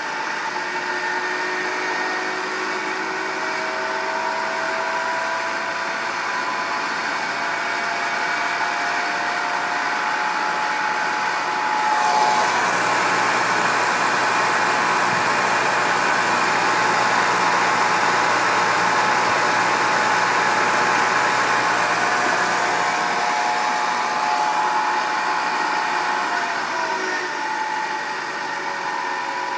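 Baldor 7.5 hp three-phase electric motor running on a small Mitsubishi variable-frequency drive: a steady motor and fan hum with whining tones that glide slowly as the drive's speed shifts. It is louder in the middle, and the whine drops in pitch near the end as the speed is turned down. The 400 W drive is far undersized for this motor.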